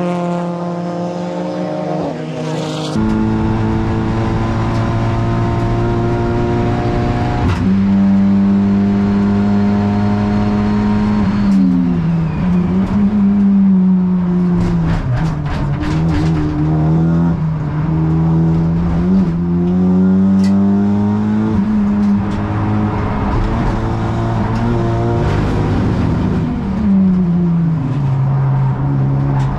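Honda Civic Type R FL5 race car's turbocharged four-cylinder engine at racing speed. The engine note drops sharply on an upshift, then sags and climbs again as the car slows for corners and accelerates out.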